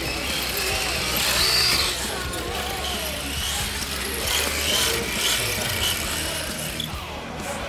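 Radio-controlled rally cars driving, their motors and gears whining, the pitch rising and falling as the throttle changes.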